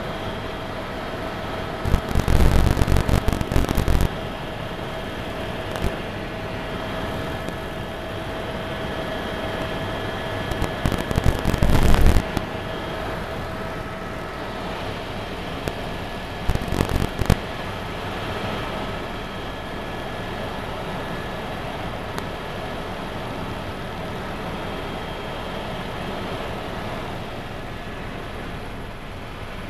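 Helicopter cabin noise in flight: a steady engine and rotor drone with a steady whine over it. Three loud crackling bursts break in, about two seconds in, around eleven seconds and around seventeen seconds.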